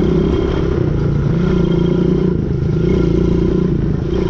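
Quad bike (ATV) engine running at a steady low speed while riding, its pitch wavering slightly up and down.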